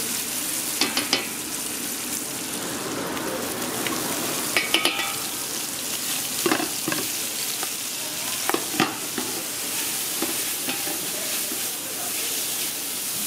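Diced meat and chopped onions sizzling in hot fat in a stainless steel stockpot while a spatula stirs them, with occasional scrapes and clicks of the spatula against the pot.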